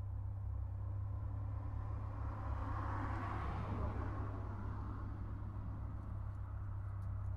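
Road traffic: a vehicle passes, its noise swelling to a peak about halfway through and fading again over a steady low rumble.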